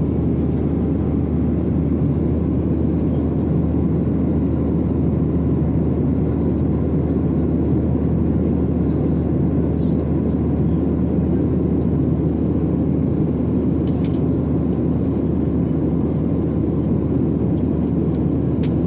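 Steady cabin roar of a jet airliner in flight, engine and airflow noise heard from inside the cabin, with a couple of faint clicks near the end.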